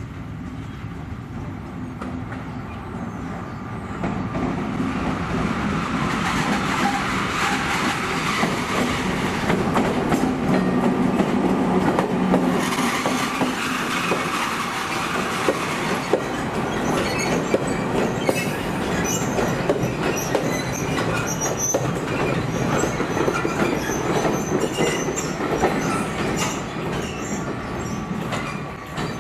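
DE6400 diesel-electric locomotive pulling away with a short train of covered wagons. The engine runs under load and grows louder about four seconds in, with wheels clacking over rail joints; high wheel squeals come through the second half.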